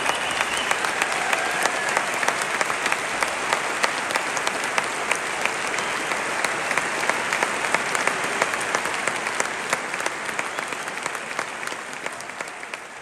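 Large audience applauding steadily in a concert hall, the clapping fading out near the end.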